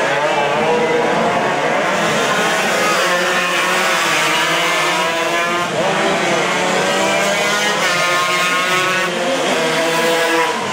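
Several Yamaha RX-King two-stroke race motorcycles running hard at high revs. Their engine notes overlap, each rising and falling in pitch through gear changes.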